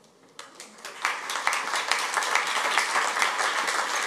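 A few scattered claps, then an audience breaks into steady applause about a second in.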